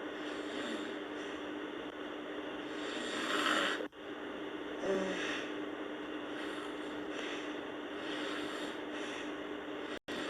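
A sleeping girl snoring: slow breaths swell and fade over a steady background hiss, the loudest about three to four seconds in and another just after five seconds.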